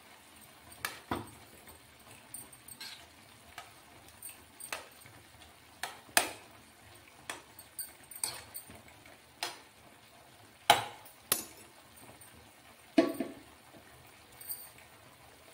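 A steel spoon stirs vegetables boiling in water in a nonstick frying pan, clicking and knocking against the pan at irregular intervals. A sharper knock about thirteen seconds in fits the spoon being set down on the counter.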